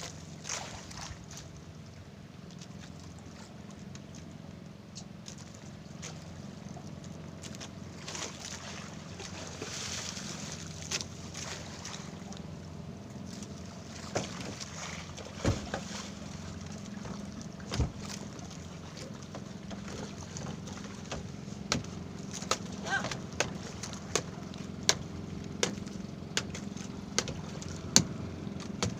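A small fishing boat's engine running steadily, with water sloshing around the hull. In the second half come sharp knocks or clicks, roughly once a second towards the end.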